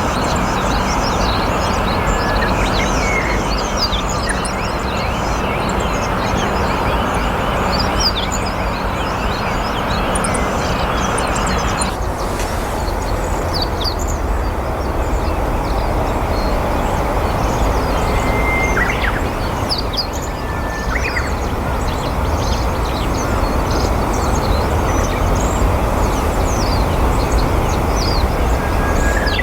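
Meadow bunting singing in short, high, quick chirps on and off throughout, over a loud, steady background rumble; a few brief level whistled notes come in about two-thirds of the way through.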